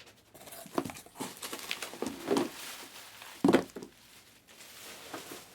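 Trading card box packaging being handled and opened: irregular crinkling, rustling and light taps, with a louder knock a little past halfway.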